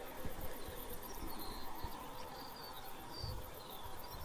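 Faint outdoor ambience: short, high chirps repeating every second or so over a low rumble, with a brief low bump about three seconds in.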